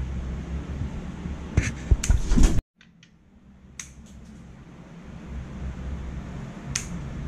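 Pet nail clippers snipping a chihuahua's claws: a few sharp clicks over a steady low room hum. A cluster of louder knocks comes about two seconds in, then the sound cuts out suddenly and fades back.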